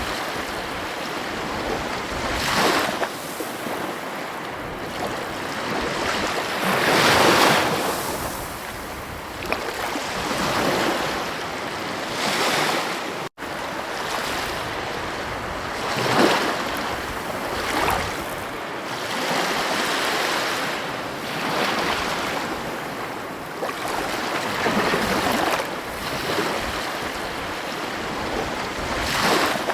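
Ocean waves breaking and washing on a beach: a steady rush of surf that swells with each wave every few seconds. A momentary dropout in the sound about halfway through.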